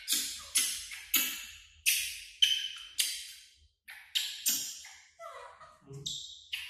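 Background music made mostly of sharp, bright percussion strikes, about two a second, each dying away quickly, with a few short tones in between.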